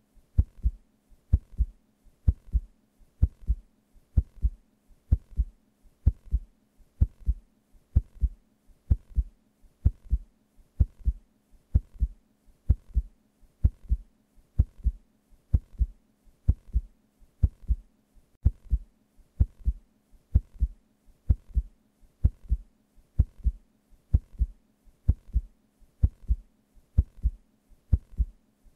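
A steady heartbeat sound effect: a low double thump about once a second, evenly repeated.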